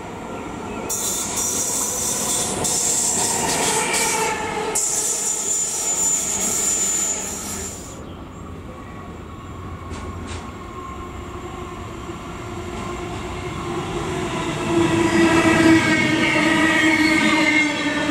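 Trains passing through a station: the sound of a train that has just gone by fades out over the first several seconds. Then an Intercity train of coaches approaches and runs past close by, its rumble on the rails growing louder from about two-thirds of the way in, with a steady hum that slowly drops in pitch.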